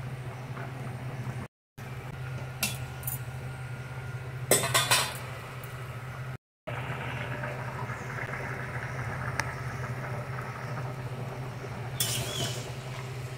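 A metal spatula clinking and scraping against a steel pot of simmering taro curry, over a steady low hum. A quick run of clinks about four and a half seconds in is the loudest moment, with single clinks before it and more near the end. The sound cuts out briefly twice.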